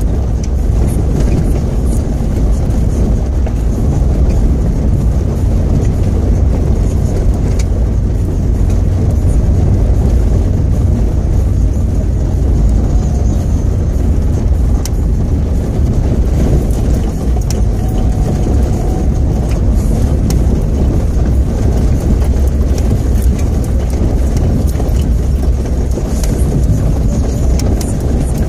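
Daihatsu Terios driving on a rough gravel road: a steady low rumble of engine and tyres, with faint scattered clicks throughout.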